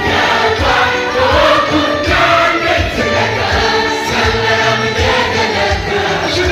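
A choir singing gospel worship music over a band, with a steady low drum beat underneath.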